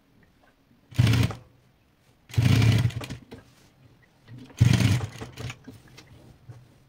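Industrial sewing machine stitching piping onto a cushion cover in three short bursts, about a second in, at two and a half seconds and near five seconds, with pauses between as the fabric is repositioned.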